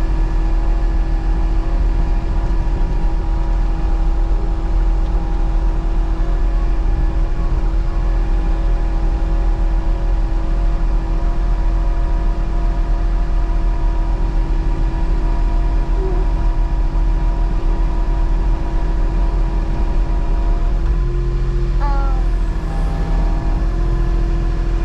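Excavator's diesel engine running steadily, a constant low rumble with a steady whine over it.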